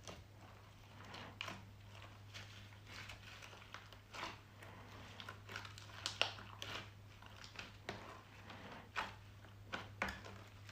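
Slime being squished, pressed and stretched by hand, giving irregular small sticky clicks and pops, a few of them louder, over a faint steady low hum.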